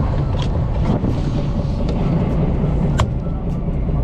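A fishing boat's engine running steadily, with one sharp tap about three seconds in.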